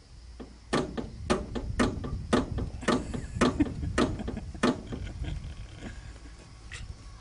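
Jeep's floor-mounted gear lever being worked back and forth by a small child, giving a run of sharp metal knocks about two a second for some four seconds, then one lone click near the end.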